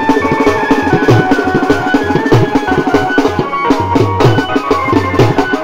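Two marching side drums beaten with sticks in a quick, steady rhythm, under a Hindi song melody played on an electronic keyboard through a horn loudspeaker, with low bass notes sounding beneath in the second half.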